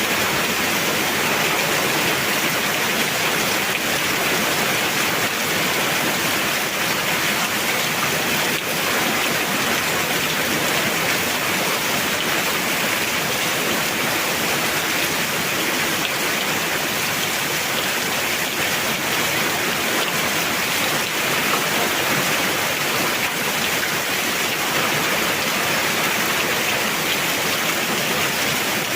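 Heavy rain pouring down in a steady downpour, an even hiss of water on surfaces.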